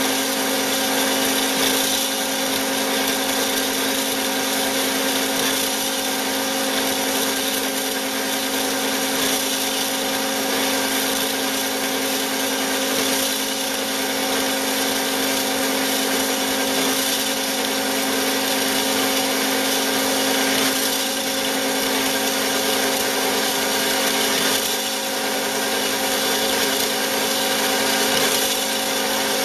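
Bigstone CF450 horizontal bandsaw running steadily: a constant machine hum with an even hiss over it.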